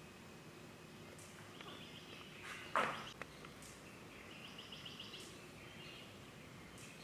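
Outdoor background noise with faint bird chirps, and one short loud cry about three seconds in.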